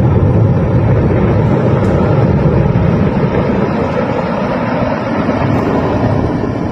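A loud, steady rushing noise, deep and even, with no clear tone.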